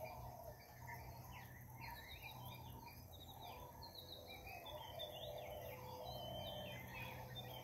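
Faint morning chorus of many small birds: quick chirps and short gliding whistles overlapping throughout, with softer lower calls and a steady low hum beneath.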